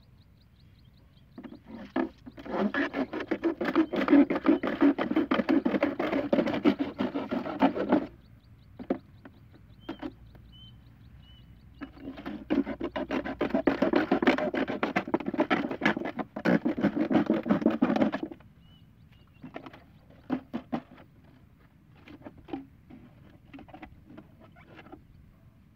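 A plastic bottle being worked by hand. There are two long spells of rapid scraping and rattling, about six seconds each, one starting a couple of seconds in and one about halfway, with scattered single clicks between and after them.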